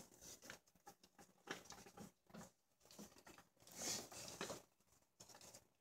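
Faint scattered clicks, scrapes and rustles of hands working a loosened spin-on oil filter off by hand, with one louder hissing rustle a little before four seconds in.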